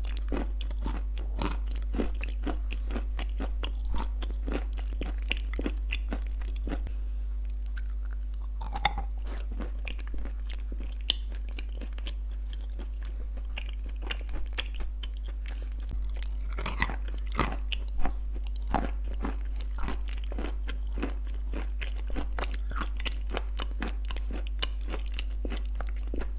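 Close-miked chewing of crunchy baked clay shortbread cookies with clay paste: a dense run of crisp, irregular crunches, with a few louder crunches about two-thirds of the way through.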